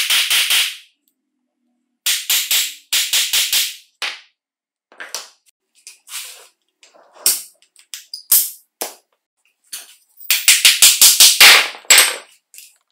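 A mallet knocking rapidly on an old drill's aluminium gearbox housing: quick runs of sharp knocks, a looser string of single taps in between, and the loudest, densest run about ten seconds in.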